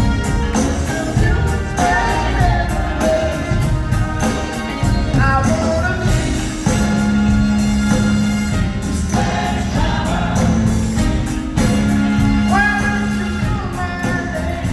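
Live band playing a funk-rock song with lead singing and backing vocals over a steady drum beat, with long held notes about halfway through and again near the end.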